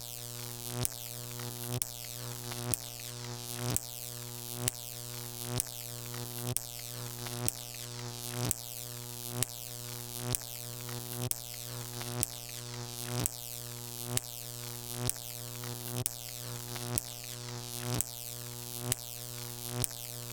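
Jacob's ladder high-voltage arc buzzing with a steady electric hum, the arc swelling louder as it climbs and then breaking with a sharp crack about once a second before reforming.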